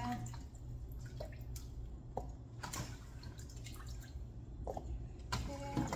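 Scattered soft knocks and wet drips as cut strawberries are handled and put into a glass jar, over a low steady hum.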